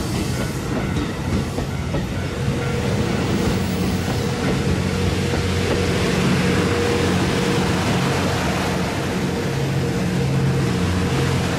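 JR West 87-series Twilight Express Mizukaze diesel-electric sleeper railcar train passing slowly. Its underfloor diesel engines give a steady hum with a thin whine over it, and the wheels rumble on the rails.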